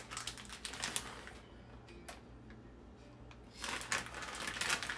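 Plastic bag of shredded cheese crinkling and rustling in the hand, with many small clicks as it is handled; it goes quiet for about two seconds in the middle, then the crinkling starts again.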